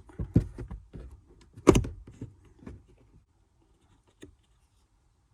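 Plastic clicks and knocks from a Toyota Sienna's glove box and cabin-filter cover being pressed and unclipped by hand, with one loud knock a little under two seconds in. The last two seconds are nearly quiet.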